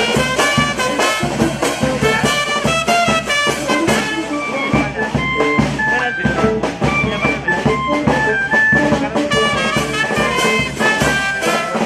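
Brass band playing a tune: brass instruments carry the melody over a bass drum and cymbals beating a steady rhythm.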